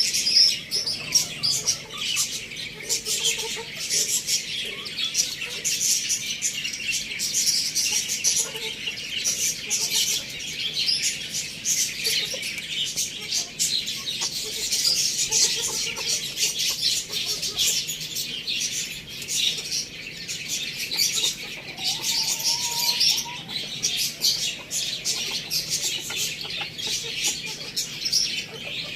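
Many small birds chirping and chattering together without a break, a dense stream of quick high calls.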